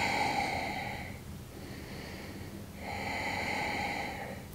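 A woman's slow, audible breaths, two long breaths: one fading out about a second in, the next from near three seconds until just before the end. They are the deliberate, controlled breathing of someone holding a yoga bridge pose.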